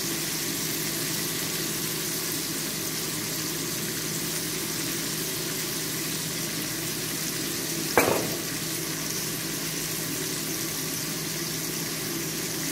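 Fish fillets frying in oil in a nonstick skillet: a steady sizzle. A single sharp knock about eight seconds in.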